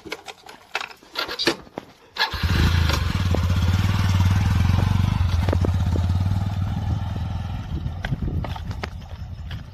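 A Honda CD-series single-cylinder motorcycle engine catches suddenly about two seconds in, after a few clicks and knocks, and runs steadily as the bike pulls away with two riders. It eases off slightly near the end.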